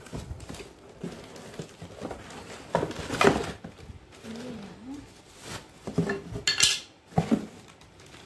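A stainless-steel kadhai being lifted out of a cardboard box and unwrapped, with metal clinks and clatters and the rustle of plastic and paper wrapping. The loudest clatters come about three seconds in and again around six to seven seconds.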